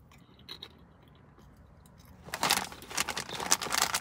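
A faint crunch of a tortilla chip being chewed, then from about two seconds in a snack chip bag crinkling loudly as it is handled.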